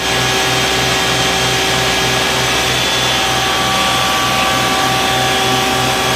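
Isuzu water tanker truck running its roof-mounted water cannon: a loud, steady drone of engine and pump with a low pulse about three times a second, under the rushing hiss of the water jet.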